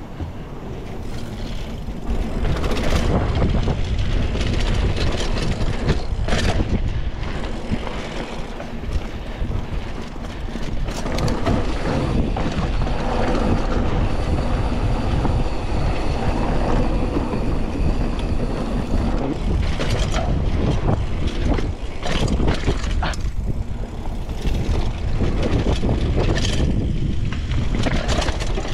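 Mountain bike riding on dry dirt singletrack: steady wind rumble on the microphone with tyres rolling over dirt and dry leaves, and frequent clacks and rattles from the bike over bumps.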